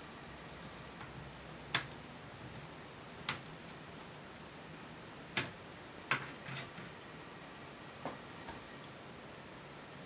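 About six light, sharp clicks and knocks, spaced a second or so apart, from the optical drive and small parts being handled and worked loose from an open white MacBook's case.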